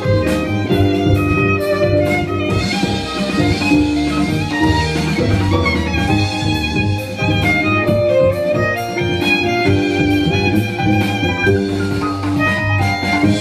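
Violin and double bass duo playing live. The double bass is plucked under a bowed violin melody.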